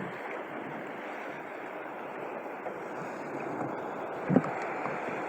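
Steady rush of wind and sea water around a fishing kayak at sea, with one brief louder sound a little past four seconds in.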